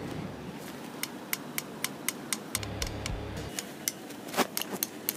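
Rapid, even clicking, about four clicks a second, starting about a second in, with one louder click near the end.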